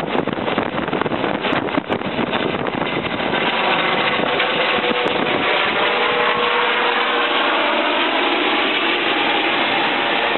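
Eurocopter EC 135 twin-turbine helicopter flying overhead and away: steady rotor and engine noise, choppy for the first two to three seconds, then smoother with a faint steady tone.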